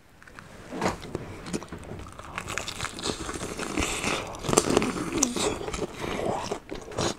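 Biting into and chewing a crispy fried chicken drumstick held by hand, its crust crunching and crackling in many short clicks that build after about a second.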